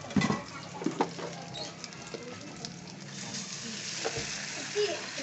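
Food sizzling in a shallow wok of hot oil, with a few sharp knocks of a utensil against the pan in the first second; the sizzle grows louder about three seconds in.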